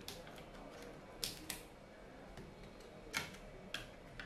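Short, sharp plastic and metal clicks and taps as fingers handle connectors and parts inside an opened Lenovo IdeaPad 3 14IIL05 laptop during disassembly. They are irregular, with two louder clicks about a second in and again near three seconds.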